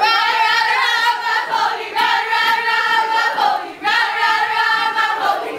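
A group of young people singing an energizer chant together in loud unison. It comes in three phrases with held notes and short breaks between them.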